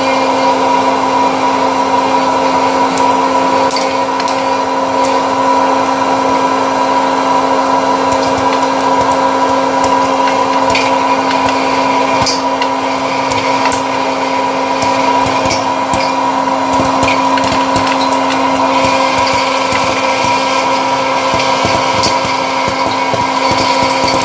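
Electric hot-air popcorn machine running, its fan motor giving a steady loud hum and whir, with scattered sharp pops of kernels bursting.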